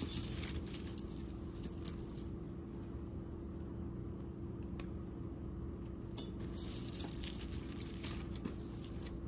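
Tangled costume jewelry jingling and clinking, metal chains and beads knocking together as a chunky necklace is worked free of the pile. It comes in two spells of clinks with a quieter lull between, over a faint steady hum.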